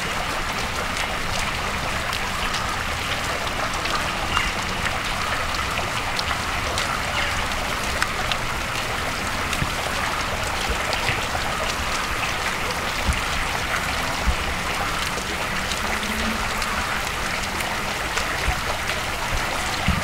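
Tiered cast-iron Coalbrookdale park fountain: water splashing and falling into its basins in a steady rush, flecked with small splashes.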